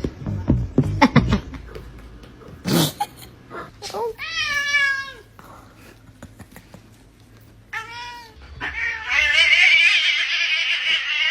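Domestic cat yowling: a drawn-out wavering call about four seconds in, a short one near eight seconds, then a long, loud yowl to the end. Before the calls come a few knocks and one sharp crack.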